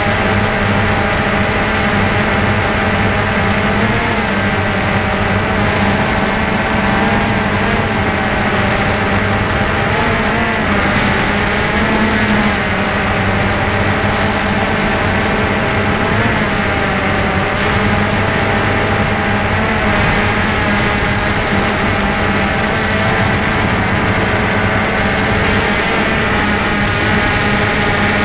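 DJI Phantom 2 quadcopter's electric motors and propellers whining steadily, heard close up from the camera mounted on the drone, the pitch of the hum wavering slightly now and then.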